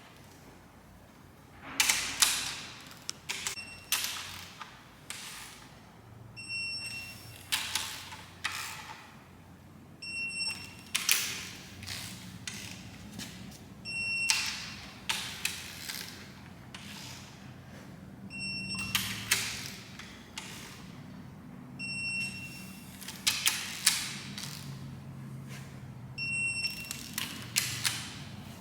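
Ratcheting torque wrench tightening cylinder head bolts one after another: bursts of rapid ratchet clicks, each followed by a short high beep, six in all about four seconds apart, the wrench's signal that the set torque is reached on that bolt.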